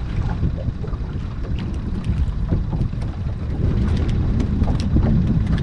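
Wind buffeting the microphone as a heavy, fluttering rumble that grows louder about two-thirds of the way in, with scattered light clicks and taps over it.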